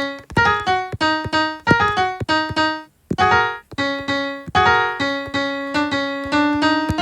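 Piano notes from a phone piano app, played in quick melodic phrases of several notes a second, with a brief pause about three seconds in.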